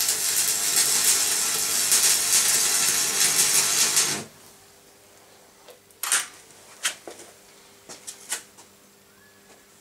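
Electric arc welding: a steady crackling hiss for about four seconds that cuts off abruptly when the arc is broken. A few light clicks and taps follow in the quiet.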